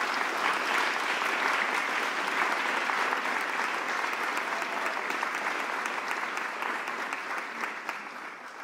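Polite applause from a small audience, a stock sound effect: a steady patter of many hand claps that dies away near the end.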